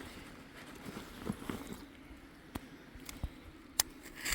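A piece of limestone being scratched in a scratch test: faint scrapes with a few short, sharp clicks of hard material on stone, one louder click near the end.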